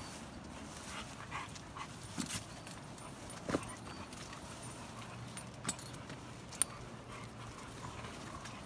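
A pack of pit bull–type dogs milling about close by, with faint dog noises and about four short, sharp clicks or taps scattered through the middle.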